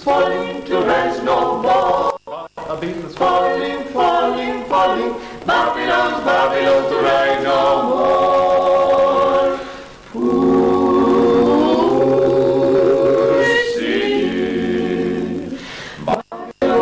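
A small group of voices singing unaccompanied in harmony, with long held chords in the second half. The singing breaks off for a split second twice.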